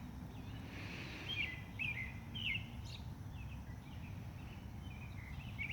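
A songbird chirping outdoors: a run of short, quick notes repeating every half second or so, with a pause mid-way and more near the end, over a faint steady low background rumble.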